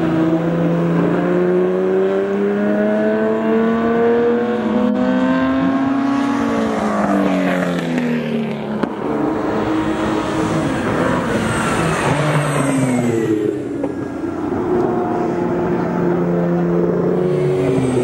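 Ferrari 250 GT SWB 'Breadvan' V12 racing engine at full throttle on track. Its pitch climbs for several seconds as the car accelerates, falls away in the middle, then rises and falls again.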